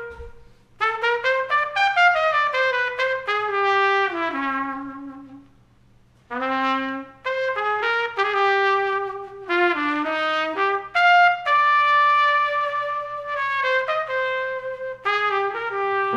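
Jazz trumpet played open, alone in slow phrases of separate notes. There is a short pause about a second in and another about six seconds in.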